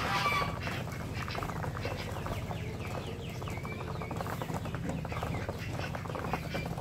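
Muscovy ducks, white ducks and a goose feeding from a metal tray: a fast, steady clatter of bills dabbling and pecking at the feed against the metal. There is a short call right at the start and faint high chirps in the middle.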